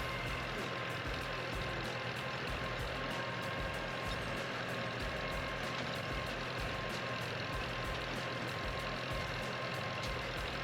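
Engine of the vehicle pulling a hayride wagon, running steadily at low speed, with a faint constant whine above the rumble.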